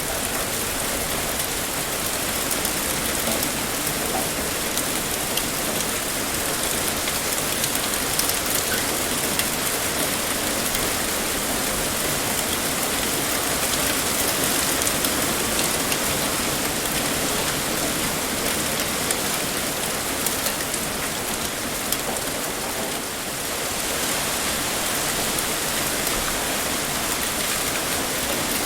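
Heavy rain pouring steadily, a dense even hiss with fine patter of drops, dipping briefly about two-thirds of the way through.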